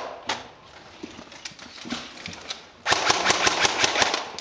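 Airsoft M4-style electric gun firing on full auto. A brief burst comes at the start and scattered shots follow, then a rapid burst of about a second and a half near the end.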